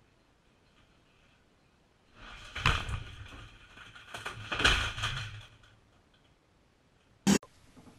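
A desk chair and a computer desk tipping over and crashing to the floor: a clattering fall with two heavy thumps about two seconds apart, then a single short sharp crack near the end.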